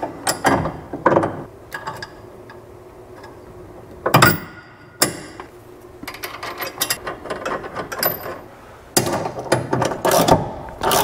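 Hand ratchet wrench clicking in quick runs as the bolt through the Panhard bar end and its bracket is tightened, with a few metal clinks and one sharp knock about four seconds in as the spacers and bolt are fitted.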